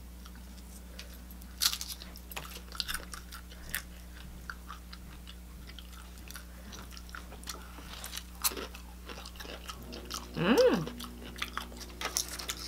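Biting and chewing crunchy fried wontons (crab rangoon), with scattered crisp crackles. About ten seconds in, a short sound rises and falls in pitch.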